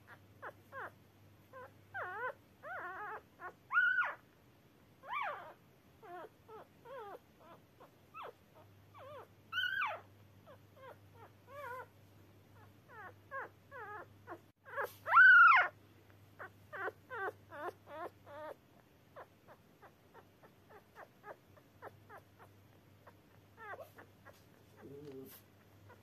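Three-day-old newborn puppy squeaking and whimpering in quick runs of short high calls, broken by a few louder drawn-out cries, the loudest about halfway through. These are the cries of a blind newborn crawling in search of warmth. The calls thin out and grow fainter over the last several seconds.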